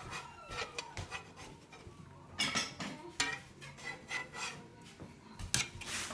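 Kitchen utensils clinking and scraping in a series of short, irregular clatters.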